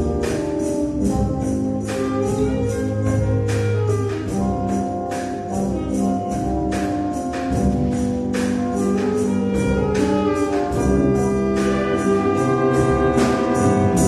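Symphonic wind band playing: clarinets and brass hold shifting chords over a steady beat of percussion strikes.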